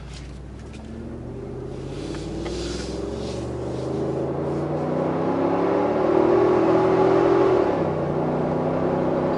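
The Ford 7.3-liter gas V8 of a 2020 F-250 accelerating hard under load in tow mode, pulling a camper and a boat trailer. The engine note climbs steadily for nearly eight seconds, drops as the transmission shifts up a gear, then starts climbing again.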